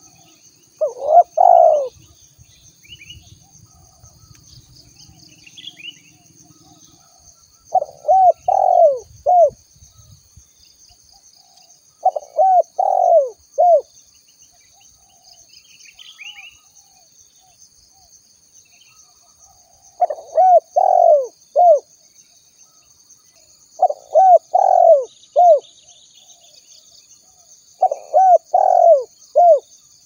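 Spotted dove cooing: six phrases of about three coos each, spaced several seconds apart. Under it runs a faint, steady, high-pitched insect drone, with a few faint chirps of small birds.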